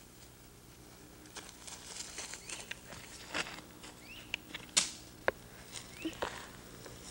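Footsteps on twigs and leaf litter: irregular light crunches and snaps, the sharpest about five seconds in. A bird gives a few short chirps in between.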